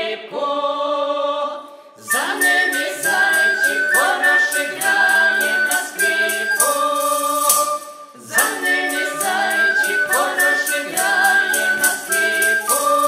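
Russian folk ensemble singing a Christmas carol (koliadka) in chorus, with two wooden folk pipes playing the melody and a tambourine jingling in a steady beat that comes in about two seconds in. The music dips briefly near the middle and picks up again.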